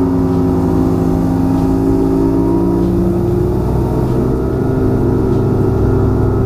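Bass boat's outboard motor running at speed. Its engine note rises slightly over the first few seconds, then holds steady.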